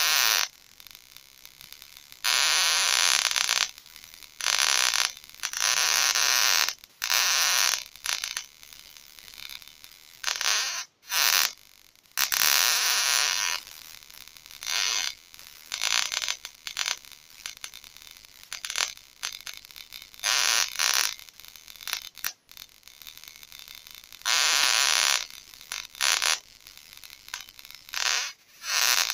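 Homemade high-voltage ozone generator discharging between its foil plates and wire leads: bursts of hissing electrical discharge that start and stop irregularly, each lasting from a fraction of a second to about two seconds.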